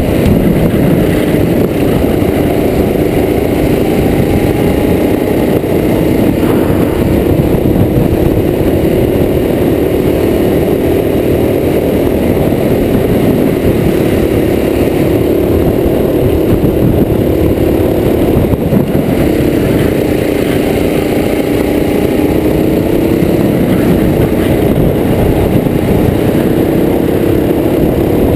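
Racing go-kart engine recorded from onboard the kart, running hard with its pitch repeatedly rising and falling as the throttle is lifted and reapplied through the corners, over a steady low rumble.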